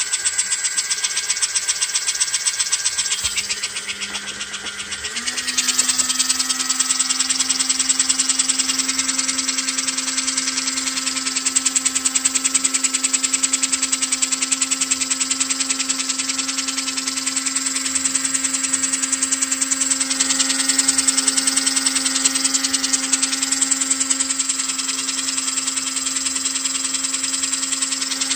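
Electric motor and gearing of an American Flyer model steam locomotive running on the bench: a steady buzzing whine over fast, even rattling ticks. The pitch steps up about five seconds in, as the motor speeds up, then holds.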